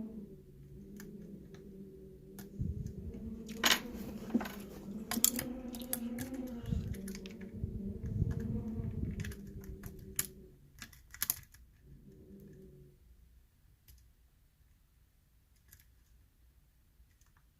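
Small sharp clicks and taps of a lock pick working the pins inside a challenge lock's cylinder. For about the first ten seconds they sit over a low, steady hum with several pitches, which fades out, comes back briefly, then stops.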